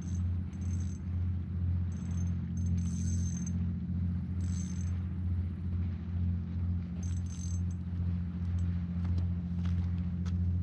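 Low, steady engine drone with a slow throb, about two to three pulses a second, overlaid by short runs of high-pitched insect chirping.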